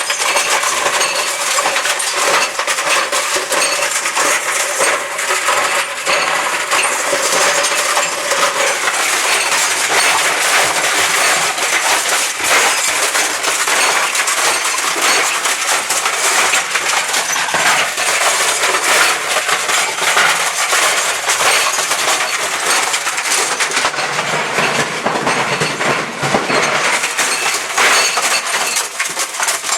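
Dell laptop tumbling in the drum of a running clothes dryer: a continuous loud clatter of hard parts banging and clinking against the drum.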